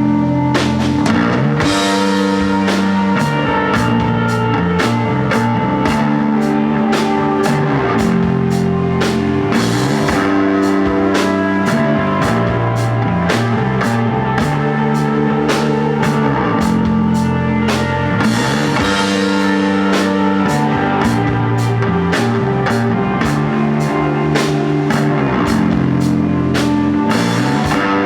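A rock band playing live with no vocals: electric guitar and bass hold long notes that change every couple of seconds over a drum kit keeping a steady beat with regular cymbal hits.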